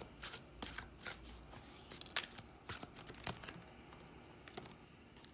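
A deck of oracle cards shuffled by hand, the cards tapping and slipping against one another in quick irregular clicks that thin out about three and a half seconds in.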